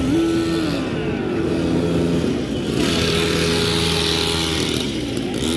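Small engines of children's mini ATVs and mini motorbikes running: a steady drone whose pitch rises and falls a few times as they ride about.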